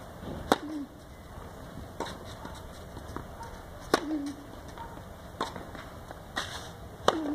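Tennis ball struck by rackets in a rally: three loud sharp racket hits from the near player, about three seconds apart, with fainter hits and ball bounces on the clay court between them.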